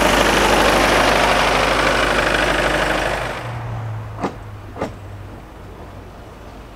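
Narrow-gauge steam train pulling out of a station. For about three seconds it rumbles and hisses loudly, then the sound fades as it draws away. Two sharp clicks of wheels over rail joints follow, about half a second apart.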